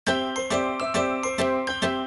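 Channel intro music: a bright, chiming melody of bell-like notes struck at an even pace, about two a second, starting abruptly.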